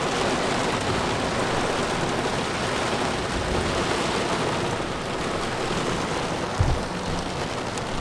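Heavy thunderstorm rain pouring steadily, with a brief low thump about six and a half seconds in.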